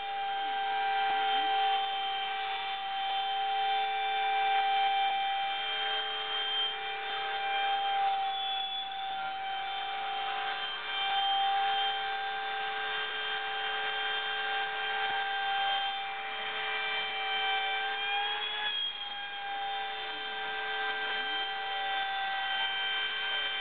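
Homemade CNC gantry router running, its motors whining in several steady tones that shift in pitch now and then, with a short upward glide about nineteen seconds in.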